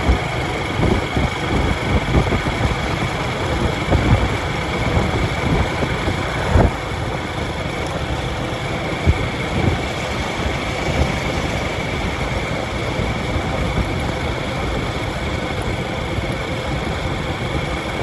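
Steady engine and road noise from the moving vehicle that carries the microphone, with wind buffeting the microphone in irregular low thumps.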